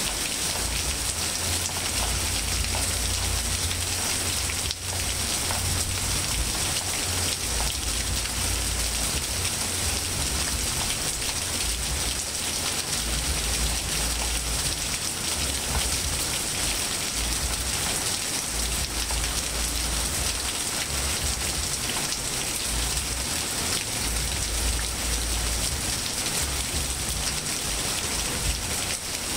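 Steady rain falling on grass, trees and pavement: an even hiss with an uneven low rumble underneath.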